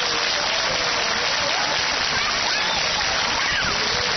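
Crowd of spectators applauding, a steady clapping.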